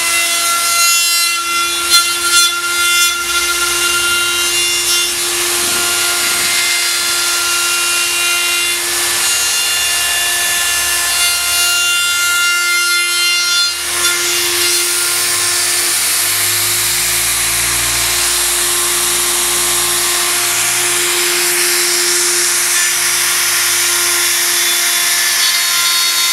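Handheld electric plunge router running at full speed and cutting aluminium profile: a steady high motor whine over a rasping cutting noise, which grows denser about halfway through.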